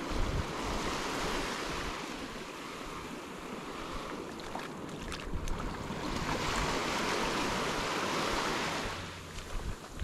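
Gulf of Mexico surf: small waves breaking and washing up on the sand, swelling twice, with wind buffeting the microphone.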